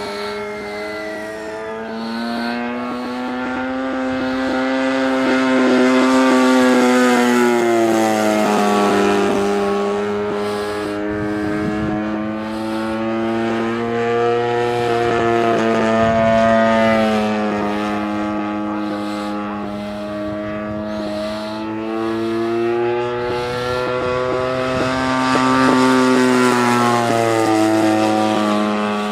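Engine and propeller of a radio-controlled Aeroworks Extra 260 aerobatic model plane in flight. Its steady note swells and rises in pitch, then drops away, three times as the plane makes passes and manoeuvres.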